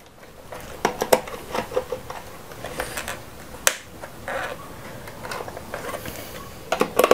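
Scattered small clicks and scrapes as a control wire is handled and pushed into the A1 screw terminal of a DIN-rail star-delta timer relay, with a quick cluster of clicks near the end.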